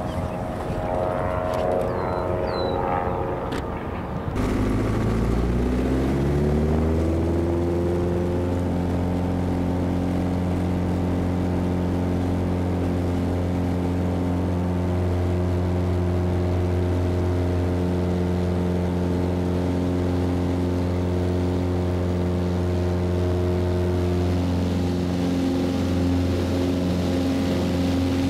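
Single-engine propeller plane, a Mooney M20J 201 with a four-cylinder Lycoming engine. About four seconds in, the engine note jumps in loudness and climbs in pitch over a few seconds, then settles into a steady run.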